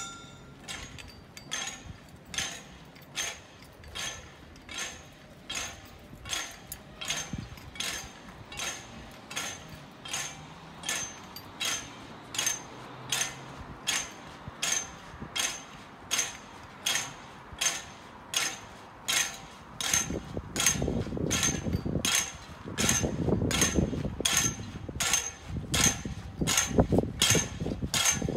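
Sharp metallic taps in a steady rhythm, about one and a half a second, like the staffs of procession penitents struck on the road as they walk. From about 20 seconds in, a low shuffling rumble grows louder beneath them.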